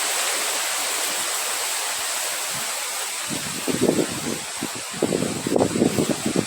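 Wind blowing in a steady hiss, with irregular low gusts buffeting the microphone from about three and a half seconds in.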